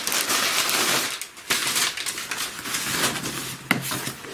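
Plastic wrap and plastic comic-book bags crinkling and rustling as a hand pulls at them and flips through the box, broken by a short lull about a second in, with a sharp click near the end.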